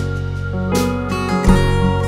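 Background music: an instrumental gap in a country song, with strummed acoustic guitar over a sustained bass.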